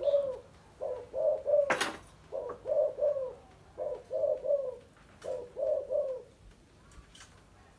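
Spotted dove cooing in repeated phrases of two or three low notes, falling quiet about six seconds in. A single sharp click sounds about two seconds in.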